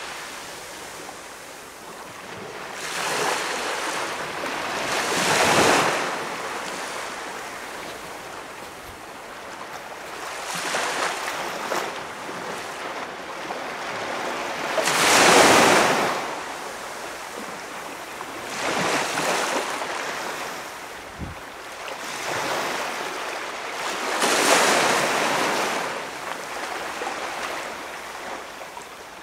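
Small waves breaking and washing up on a calm beach, each surge swelling and fading every few seconds, the loudest about halfway through.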